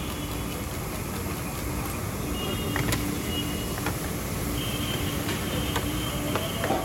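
Eggs frying in butter in a wide steel pan over a gas burner: a steady hiss, with a few sharp clicks of a steel spatula and ladle knocking the pan, the loudest near the end.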